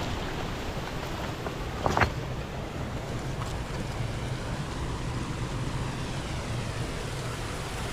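Steady rushing outdoor noise, with one sharp knock about two seconds in.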